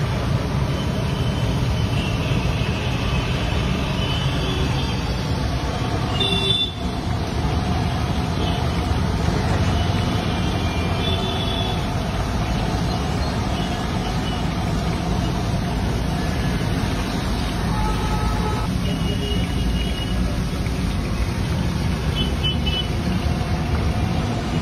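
Steady roadside traffic noise with a few short horn toots, over banana slices deep-frying in a large kadai of hot oil.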